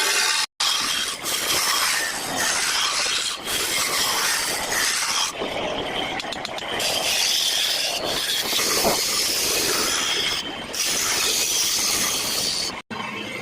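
A turning chisel scraping and cutting wood spinning on a lathe: a loud, continuous rasping scrape that swells and eases as the tool works. It cuts out abruptly for an instant about half a second in and again near the end.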